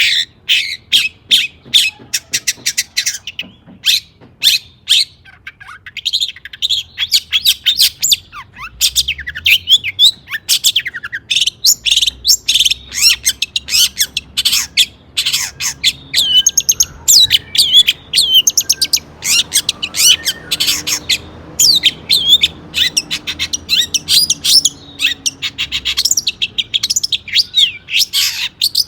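Long-tailed shrike (cendet) singing a fast, varied song of short chirps and harsh chatter, with rapid trills and quick up-and-down pitch glides broken by brief pauses.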